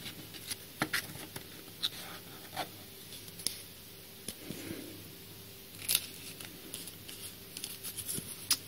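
Hands handling Yu-Gi-Oh! trading cards and a foil booster pack: scattered light clicks, taps and rustles, over a faint steady electrical buzz.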